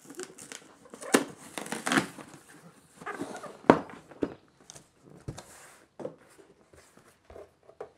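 Long cardboard box being handled and opened on a wooden workbench: scattered scrapes, taps and knocks of cardboard and its lid flap, with the sharpest knock a little under four seconds in.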